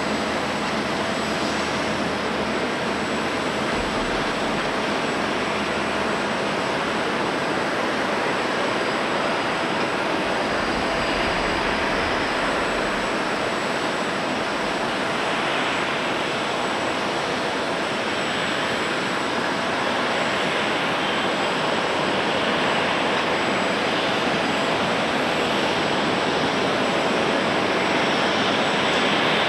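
Boeing 777's jet engines running at taxi power: a steady rushing noise with a faint steady whine, growing slightly louder near the end.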